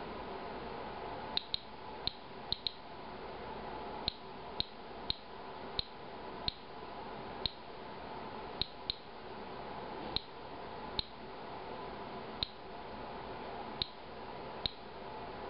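Inspector Alert Geiger counter chirping once for each radiation count it detects: about eighteen short, high beeps at random intervals, roughly one a second. These are counts from a beer sample at a rate a little over background.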